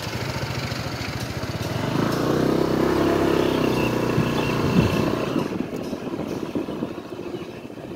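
Motorcycle engine running nearby as it passes, growing louder to a peak about three seconds in, then fading away.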